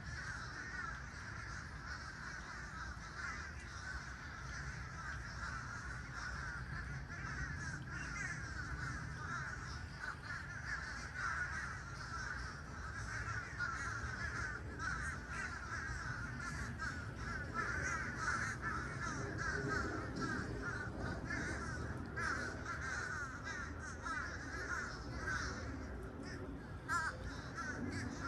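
A large flock of birds calling all at once: a dense, continuous chatter of many overlapping short calls, with a few louder calls standing out now and then.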